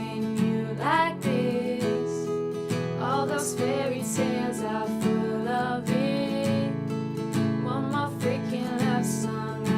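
Background music: acoustic guitar strumming under a sung melody.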